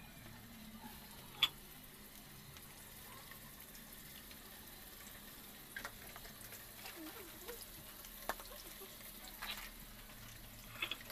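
Pork frying in hot oil in a pan, a faint steady sizzle, with a few sharp clicks; the loudest click comes about a second and a half in.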